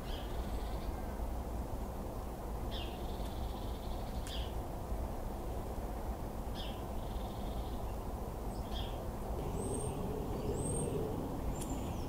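Small songbirds giving short, sharp high calls every couple of seconds, with two thin, higher whistles near the end, over a steady low background rumble.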